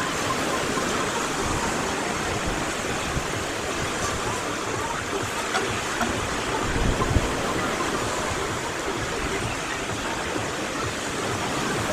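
Surf of the Azov Sea washing steadily onto the beach as an even rush of noise, with a slightly louder wave about seven seconds in.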